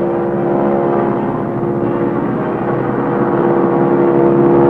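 Propeller airplane engine droning steadily as the plane makes a low pass, growing a little louder near the end.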